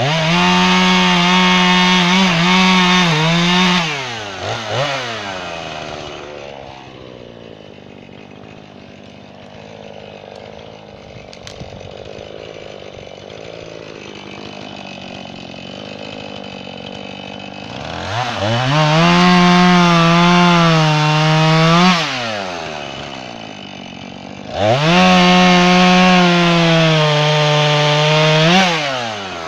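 Jonsered chainsaw cutting red oak: it runs at full throttle through a cut, drops back to idle for a long stretch, then revs up for two more cuts of a few seconds each with a short idle between, settling to idle at the end.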